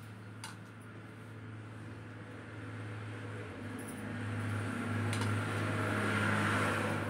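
Chalk scraping on a chalkboard as lines are drawn along a wooden ruler, growing louder in the second half, with a couple of light taps, over a steady low hum.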